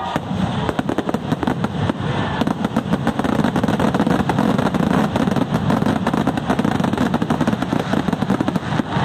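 Fireworks in a dense barrage: rapid, overlapping bangs and crackles from many shells bursting at once, without a break.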